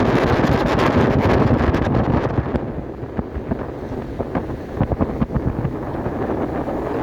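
Wind buffeting the microphone: a loud, rough low rumble that eases a little about two and a half seconds in, with scattered sharp ticks through it.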